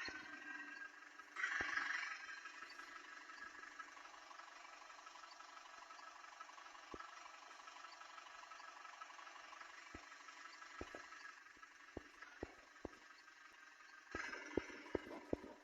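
A vehicle engine running steadily, heard faintly, with scattered sharp clicks and knocks that come more often near the end.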